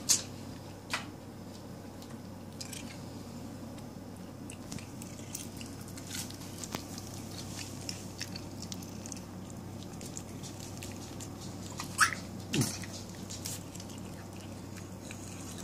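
Cats chewing grass: many small wet clicks and crunches, with a couple of louder sharp sounds about twelve seconds in, over a steady low hum.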